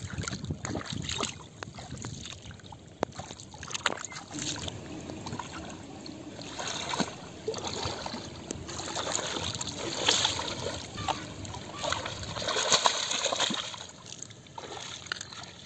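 Shallow water splashing and sloshing as someone wades and gropes about in it with their hands, with scattered small splashes and clicks. It grows busier and louder from about halfway through.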